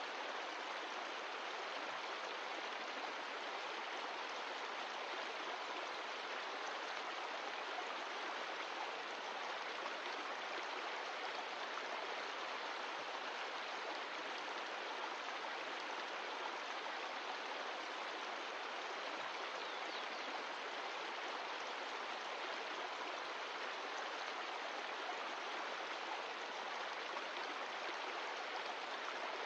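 Mountain stream of glacial meltwater running with a steady, unbroken rushing.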